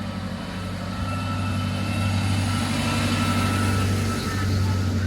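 Engine of a tourist land train running as it comes round, a steady low hum that grows a little louder through the middle.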